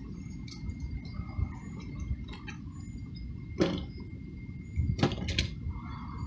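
Handling noise over a steady low rumble: a few sharp clicks and knocks, one a little past halfway and two close together about a second later, as a brass twist hose nozzle and its blister packaging are handled.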